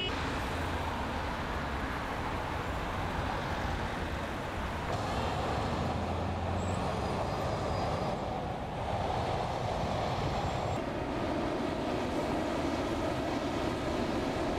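Steady city street noise with road traffic, its character shifting abruptly a few times.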